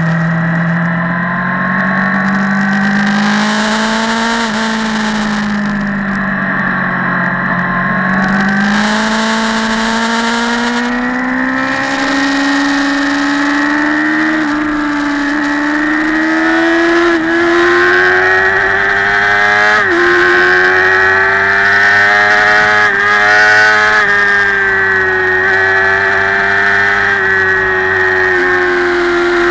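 Motorcycle engine heard from on the bike, its pitch easing off a few seconds in and then climbing steadily as it accelerates along the road, with a brief dip about twenty seconds in, over wind rushing on the microphone.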